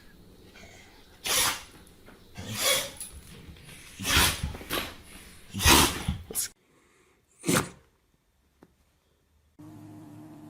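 A pet sneezing again and again: about seven short, sharp sneezes spaced a second or so apart, then a pause.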